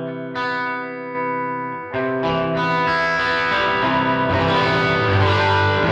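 Electric guitar played through a Line 6 POD Go amp modeler on a Fender amp model with a mid-boosting EQ in front. Clean, ringing chords at first, then from about two seconds in it is strummed harder, louder and grittier, the boosted amp breaking up with picking dynamics.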